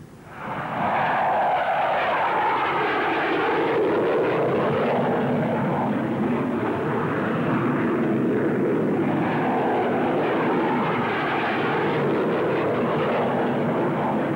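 Jet engine noise from an English Electric Lightning fighter flying tight low-level turns, swelling in within the first second and then holding loud and steady, with a whine that slowly shifts in pitch as the aircraft turns.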